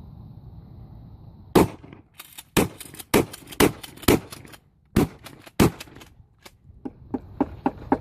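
A Mossberg 500 12-gauge pump-action shotgun fired in a rapid string of about seven loud shots, roughly half a second apart, with lighter clacks between them. Near the end come several quieter sharp clicks and clacks.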